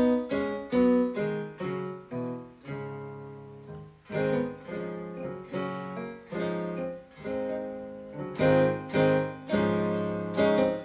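Guitar-like patch from a MidiPlus MIDI sound module, triggered by an electric guitar through a Fishman TriplePlay MIDI pickup, playing a run of picked notes and chords. The notes follow the playing with virtually no latency.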